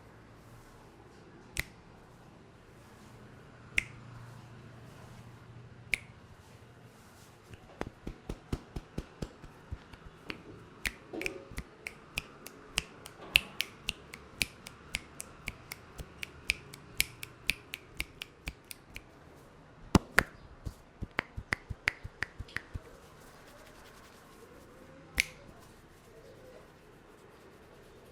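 Sharp cracking snaps made by a barber's hands during a head massage. A few single snaps come about two seconds apart, then a fast run of about three to four a second lasting roughly ten seconds. After a brief pause there is a shorter run, and one last snap near the end.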